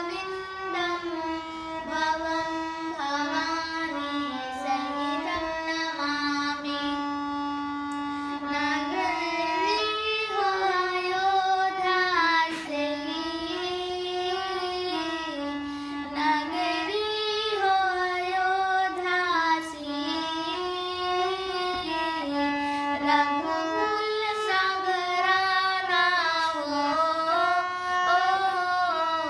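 A child's high voice singing a slow Hindi bhajan to Lord Ram, an unbroken ornamented melody with long held, gliding notes.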